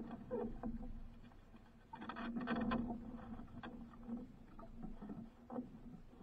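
Water lapping and slapping against the hull of a small wooden outrigger boat in irregular surges, with a few light knocks from the boat.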